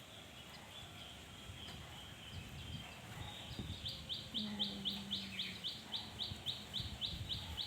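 A bird chirping in a fast, regular series of short high chirps, about three or four a second, starting about three and a half seconds in.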